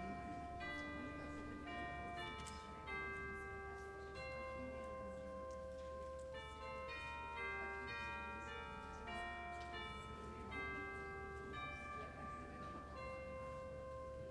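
Soft instrumental prelude music: a slow melody of held notes with bell-like tones, played at low level.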